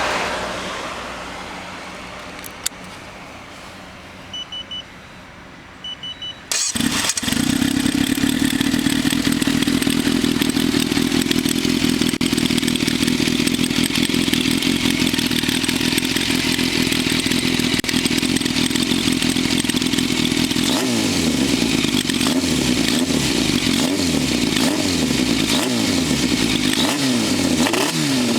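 A few short electronic beeps, then an inline-four motorcycle engine with Keihin FCR carburettors and a titanium short silencer (two inner baffles fitted) starts about six seconds in and idles steadily. In the last third the throttle is blipped over and over, the revs rising and falling each time.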